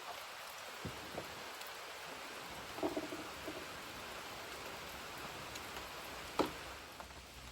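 Rain falling steadily on a tarp, an even hiss, with a few small clicks and knocks of handling; the sharpest comes about six seconds in.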